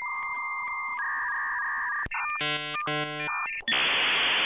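Electronic sound effects: steady beep tones that step up in pitch, then two short buzzer blasts, then a loud burst of static hiss near the end.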